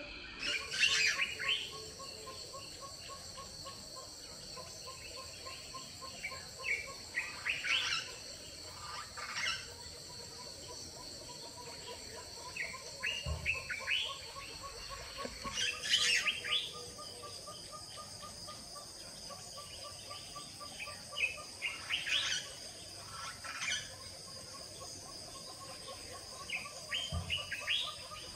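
Small birds chirping in short bursts every few seconds over a steady high-pitched insect chorus, with a faint rapid run of repeated notes underneath.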